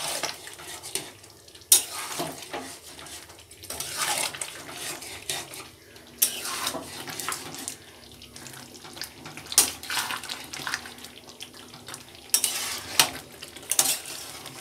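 Steel spatula scraping and clinking against a steel kadhai as a potato-chicken curry is stirred, in irregular strokes. Under it, the curry simmers down to reduce its liquid.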